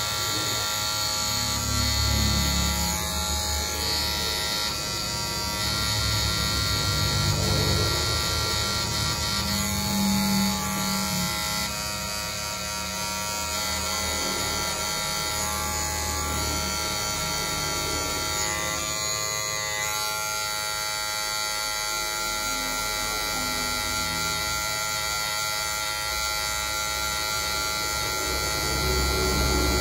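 Electric hair clippers buzzing steadily while cutting hair.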